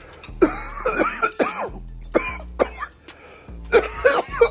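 A man coughing and clearing his throat in three bouts, over quiet background music.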